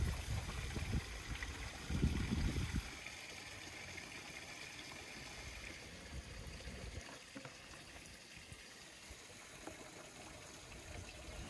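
Steady rushing of running water, like a nearby stream, with heavy low rumbles in the first three seconds that then die away.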